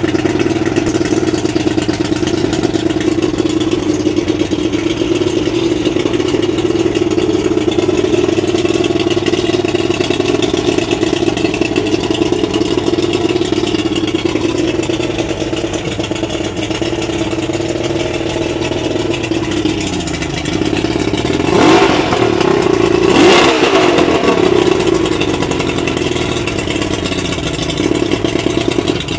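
Outboard motor running out of the water at a steady fast idle, revved up twice about two-thirds of the way through, each time rising in pitch and falling back to idle.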